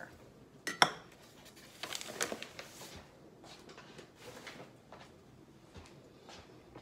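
Kitchen things being put down and handled on a counter: one sharp knock about a second in, a short rustle a second later, then faint scattered small knocks.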